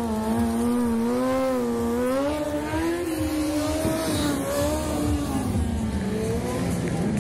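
Stunt sport motorcycle's engine running at high revs while the rider holds a wheelie, the pitch rising and falling with the throttle.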